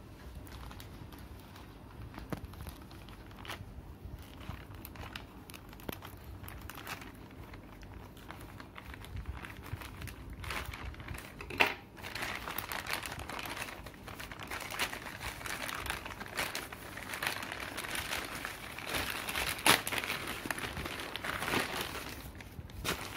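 Scissors snipping along the edge of a plastic courier mailer, with faint scattered ticks. A sharp click comes about halfway through. Then the plastic bag crinkles more loudly as it is pulled open and handled.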